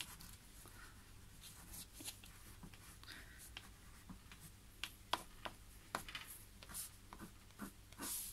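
A crayon scratching across paper in short, irregular strokes as green marks are scribbled into a drawing, with a few light taps of the stick on the paper.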